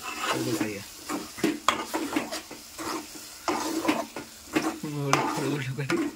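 A steel spoon stirring thick egg curry gravy in a metal pot, with repeated scrapes and knocks against the pot's side over a light sizzle of the masala.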